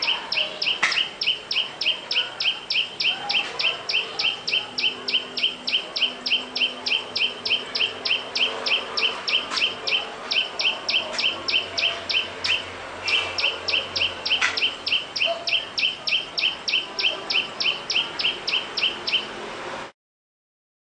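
A bird's rapid, evenly repeated high chirping, about four or five short notes a second, with a brief break a little past halfway. It cuts off abruptly near the end.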